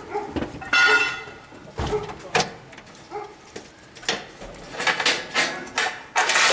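Metal circular multi-pin cable connectors being pushed into panel sockets and their threaded coupling rings turned: a string of clicks, knocks and scrapes. The loudest clatter comes about a second in, and there is a quicker run of clicks near the end.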